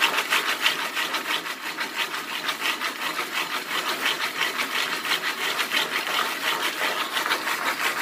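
Jiffy Pop aluminium pan being shaken back and forth over a stovetop burner, scraping in a steady rhythm of about four strokes a second. The shaking keeps the kernels moving as they begin to heat and pop.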